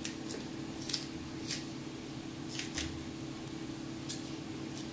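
Green banana skin being peeled off by hand: short crisp snaps and scrapes as the firm peel tears away, about ten of them at irregular intervals.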